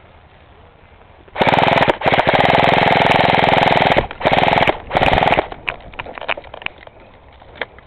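Airsoft gun firing rapid full-auto bursts: about four loud bursts close together over some four seconds, followed by scattered lighter clicks and pops.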